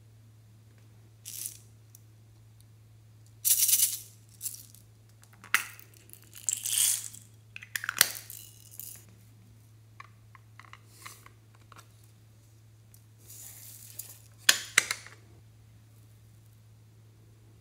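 Small dry slime add-ins (sprinkles, sequins and foam beads) shaken and poured from plastic bottles and a glass dish onto slime, rattling and pattering in several short bursts, over a steady low hum.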